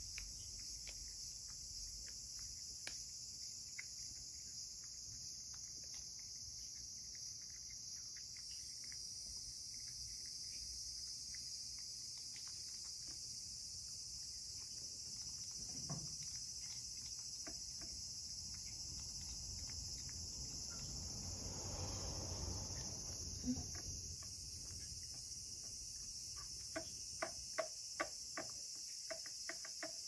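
A cat eating from a plate, with faint licking and chewing clicks that come quicker and louder near the end. Under it runs a steady high-pitched trill.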